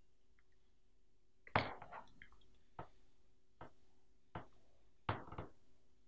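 Faint crackling and clicking of a self-regulating heating cable's braid being twisted around by hand. There are five short sounds, the loudest about a second and a half in and a longer crackle about five seconds in.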